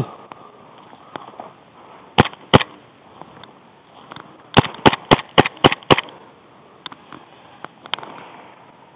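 Airsoft gun shots fired close by: two single cracks, then a quick string of six about three to four a second.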